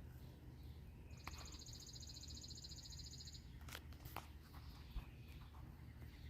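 A faint, high, rapid trill from an animal that lasts about two seconds, followed by a few sharp clicks, over a steady low background hum.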